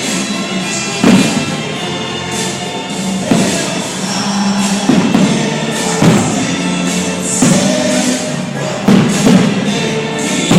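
Choral music plays, with firework shells bursting over it, a sharp bang every second or two.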